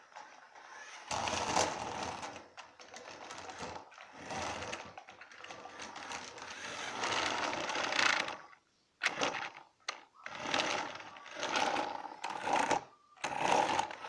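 Small electric motor of a toy RC car whirring in repeated short spurts as it is driven, with gaps between them.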